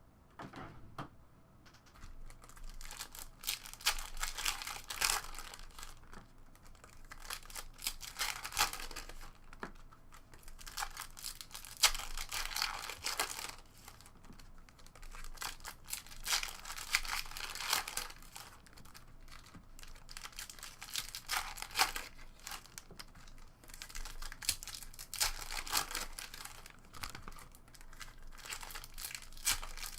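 Foil trading-card pack wrappers crinkling and tearing as hockey card packs are ripped open, in repeated short bursts.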